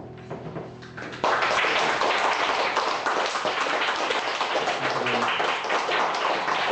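The last acoustic guitar chord of a song dies away, then about a second in the audience breaks into steady applause.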